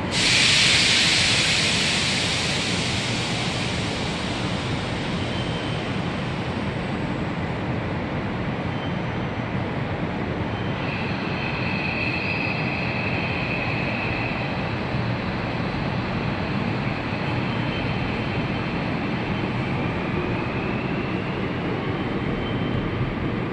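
Line 8 electric subway train at the platform: a sudden burst of hissing air that fades over about three seconds, over a steady rumble. About eleven seconds in an electric motor whine comes in, and near the end a whine rises in pitch as the train moves off.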